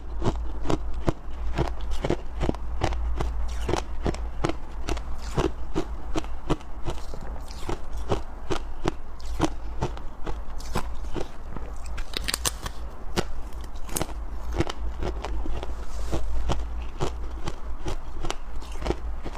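Close-up chewing of soft, powdery freezer frost, a rapid run of crisp crunches about three or four a second.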